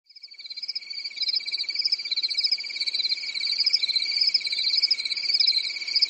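Night chorus of crickets and frogs: a steady high trill with rapid chirping above it, fading in over the first second.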